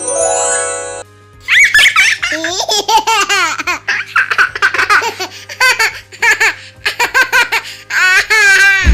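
A bright chime effect with stacked rising tones cuts off about a second in. Then comes a stock laughter sound effect: high-pitched giggling laughter in quick repeated bursts, lasting about seven seconds.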